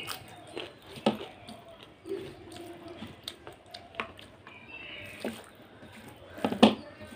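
Close-up mukbang eating sounds: wet chewing and lip smacks on soft rice congee, with fingers squishing and gathering the mushy rice on a steel plate. Scattered soft clicks, with a couple of sharper ones about a second in and near the end.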